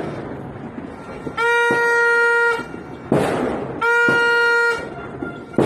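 Two long steady horn blasts, each a little over a second, about a second apart, with a sudden firework bang between them and another near the end.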